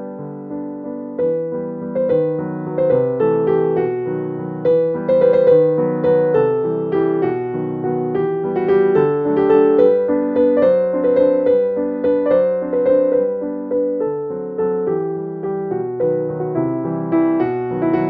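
Background piano music: a melody of struck notes, each fading out after it is played.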